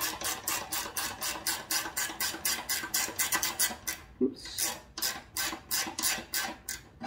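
Ratcheting wrench clicking in quick, even strokes, about five a second, as a nut is run down against the speed selector arm's tension spring. The clicking breaks off briefly about four seconds in, then resumes.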